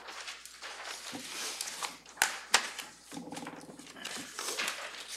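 Paper rustling and shuffling, with two sharp taps about two seconds in and a brief, low murmured voice a little after three seconds.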